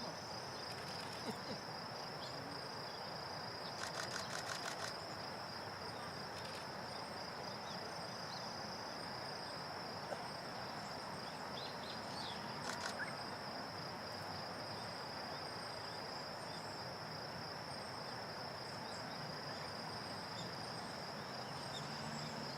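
Outdoor ambience with an insect trilling steadily at a high pitch over a low background hiss. Two short runs of rapid clicks come through, about four seconds in and again near thirteen seconds, with faint brief bird chirps here and there.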